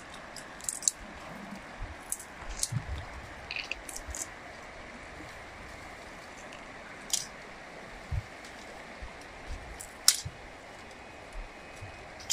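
Steady rushing of a river, with scattered sharp snaps and rustles as plant stems are cut and brush is handled with a small blade, and a few low thumps.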